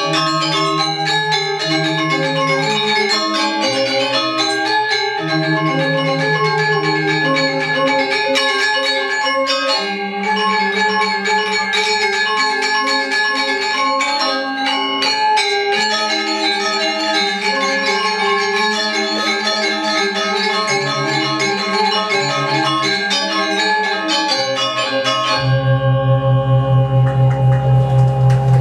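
Balinese gamelan semar pegulingan music: bronze metallophones ring out a busy interlocking melody. Near the end a deep gong note comes in loud and holds, pulsing with a wavering beat.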